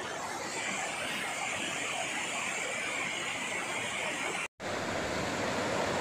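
Steady rush of a rocky mountain stream running over rock, with a split-second dropout about four and a half seconds in.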